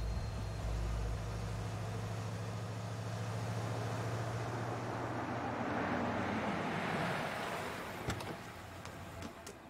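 An old ambulance truck driving toward and past, its engine and tyres swelling to their loudest about six to seven seconds in and then fading. A sharp click about eight seconds in is its rear door latch as the doors are opened.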